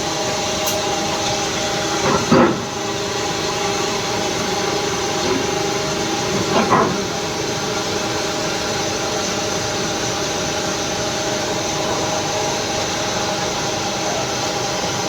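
Induction furnace melting steel, running with a steady hum of several held tones over a hiss. Two short louder bursts break in, about two and a half and seven seconds in.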